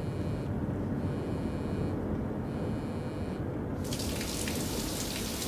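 Low steady rumble inside a car, with a mobile phone's incoming alert pulsing three times. About four seconds in, it gives way to the steady hiss of a running shower.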